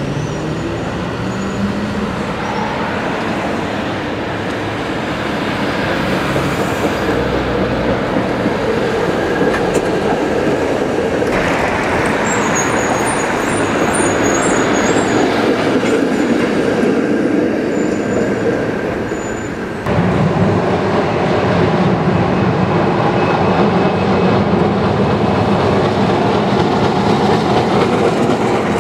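Vintage electric streetcars running along street track: the rumble of steel wheels on the rails, mixed with street traffic. The sound changes abruptly twice, about a third and two thirds of the way through.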